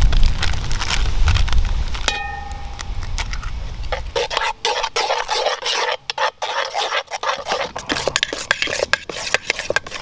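A metal spoon stirs and scrapes thick batter in a cast-iron Dutch oven and a steel mixing bowl, in many quick, uneven scraping strokes. About two seconds in, the spoon clinks on the pot with a short ring. A low rumble runs under the first four seconds.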